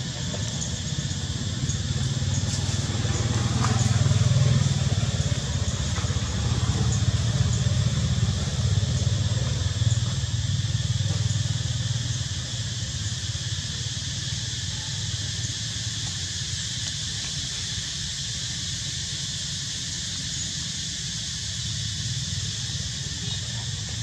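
Low engine rumble of a passing motor vehicle, swelling about four seconds in and fading away by about twelve seconds, over a steady high insect buzz.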